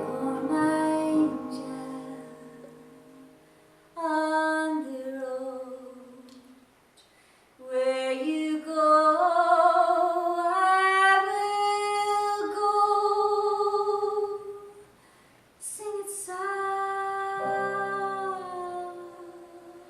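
A woman singing slow phrases of long held notes, with short breaks between phrases.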